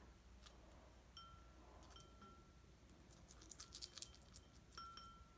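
Faint clicks and rubbing of fingertips in a small ceramic bowl of soap, with fingernails tapping the bowl so that it gives a few short, faint rings.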